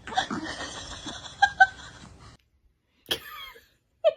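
A newborn baby's noises: breathy, strained grunting with two short squeaks about a second and a half in, then after a sudden break a brief squeal with a sliding pitch, and quick repeated squeaks starting at the very end.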